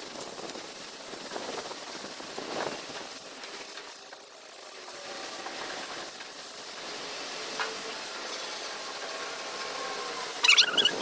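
Rubbing and scrubbing on a metal gas tank: a steady hiss with a few swishing strokes, then a burst of high squeaks near the end.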